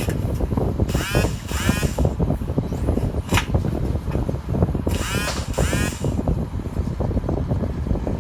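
Steady road rumble inside a moving car's cabin. Two pairs of short, high squeaks about four seconds apart break through it, with a single click between them.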